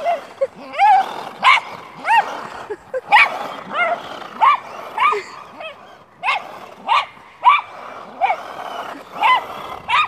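Welsh Terrier giving a steady run of short, high-pitched yips and barks, about two a second, each rising and falling in pitch: excited, frantic barking.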